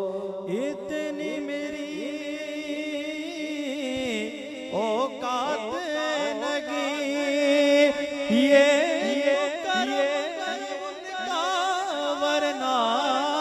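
A man singing a naat into a microphone, drawing out long, wavering, ornamented melodic runs without clear words.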